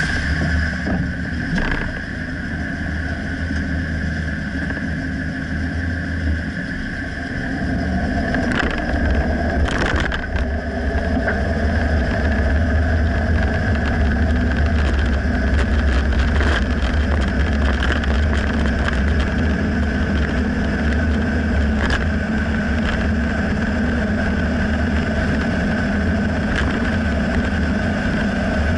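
2009 Dodge Ram pickup running with a steady low drone, broken by several sharp knocks a few seconds apart: the clunk that the owner can't pinpoint and suspects is in the rear differential.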